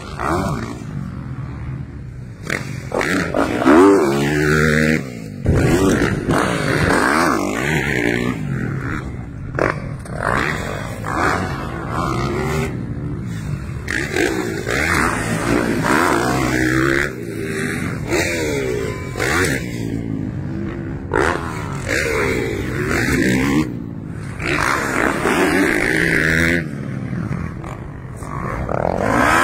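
Motocross dirt bikes racing, their engines revving up and easing off again and again, loud and close.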